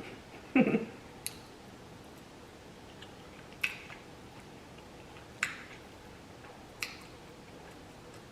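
Close-up eating sounds: a brief louder sound about half a second in, then several sharp, isolated clicks a second or two apart.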